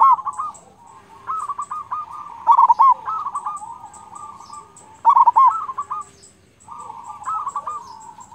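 Local zebra dove (perkutut) singing: rolling runs of short cooing notes broken by loud, deep 'kung' notes that come back about every two and a half seconds.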